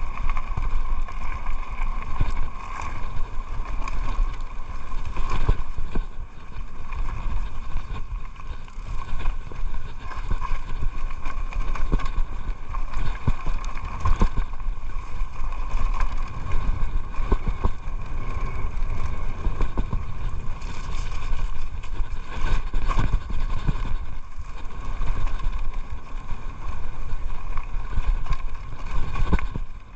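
Mountain bike descending a gravel and dirt trail: wind rumbling over the camera microphone, tyres rolling on loose ground, and the bike rattling and knocking over bumps, with a faint steady whine underneath.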